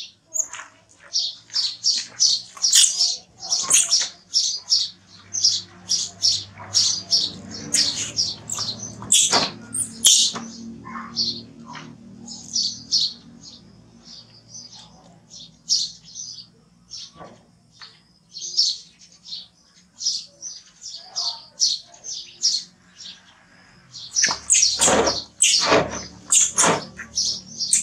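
Infant macaque crying with rapid, high-pitched squeaks repeated over and over while it is bathed, the cries growing louder and more frequent near the end.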